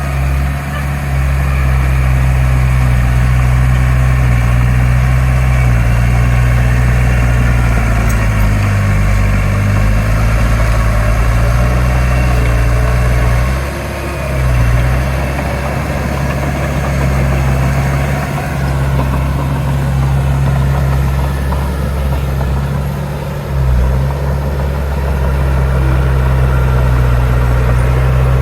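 Heavy diesel engine of earthmoving machinery running steadily under load, with brief dips in level about halfway and again near the end.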